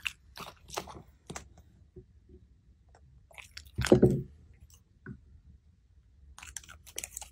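Small dog chewing and crunching food in crisp, scattered clicks, with one much louder bite about four seconds in as it takes a morsel from chopsticks.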